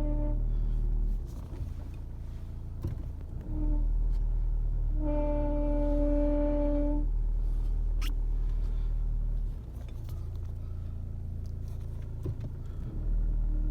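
2015 Ford Mondeo 1.5 diesel making a loud, strange droning hum with a steady pitched tone over it, which comes and goes: the tone stops just after the start, returns briefly, sounds for about two seconds mid-way and comes back near the end, while the deep hum drops out twice. It is the noise the car sometimes makes when first or reverse gear is selected, and its cause is still undiagnosed.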